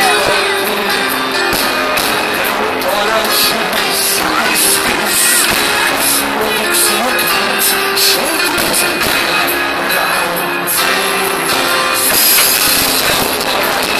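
Live rock band playing loud amplified music, with drum strikes over held notes. It is recorded on a mobile phone, so the sound is harsh and overloaded.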